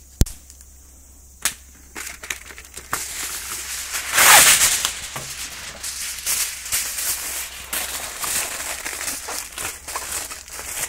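Aluminium foil crinkling and rustling as it is pulled off the roll and wrapped around a strip of wood, loudest about four seconds in. A sharp knock comes just after the start.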